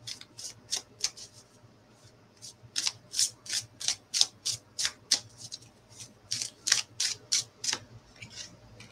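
An oracle card deck being shuffled by hand: a regular run of short, crisp swishes about three a second, pausing briefly around two seconds in.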